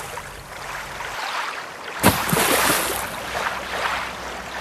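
Rushing, splashing water, with a sudden loud surge about two seconds in that fades away slowly.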